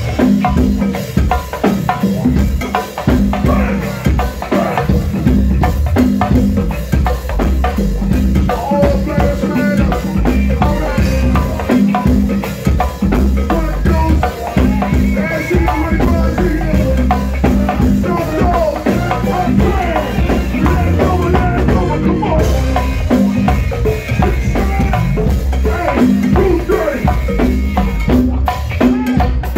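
Live go-go band music: congas and a drum kit playing a busy, steady percussion groove, with other pitched parts woven into the mix.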